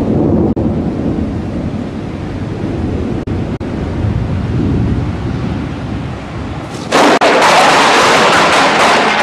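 Low rumbling thunder over the noise of surf. About seven seconds in comes a sudden, much louder crash of noise lasting about two seconds.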